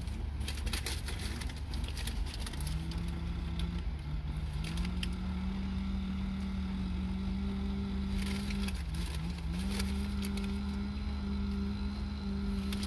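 Crunching and chewing of fried chicken, with clicks and paper rustle, over the steady low rumble of a car cabin. A low held hum comes in a few seconds in, steps up in pitch, breaks off briefly past the middle, then carries on.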